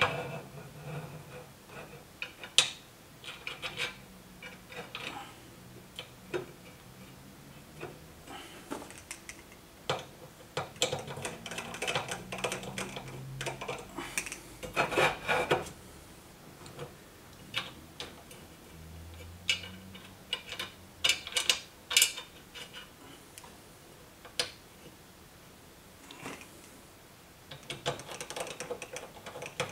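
Kanto MTM65 TV-mount bracket, screws and spacers clicking, clinking and rubbing against the back of a TV as the bracket is fitted by hand and the screws are turned in with a screwdriver. The sounds come as irregular clicks and short scrapes.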